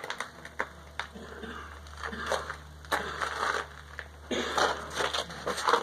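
Footsteps crunching on gravel, an irregular run of short crunches and clicks.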